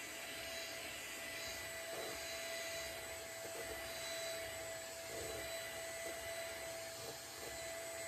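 Britânia 1250 W 2-in-1 stick vacuum cleaner running steadily as it is pushed back and forth over a shag rug, its motor giving a constant whine over the rush of the suction. The owner finds it a little noisy because it pulls so hard.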